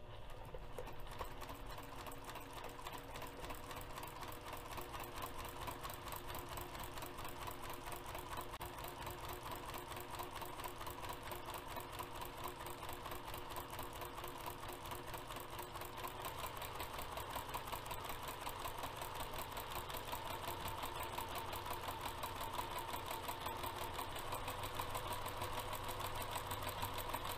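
Domestic sewing machine with a walking foot running steadily, machine-quilting straight lines through fabric and foam interfacing with a fast, even stitching rhythm.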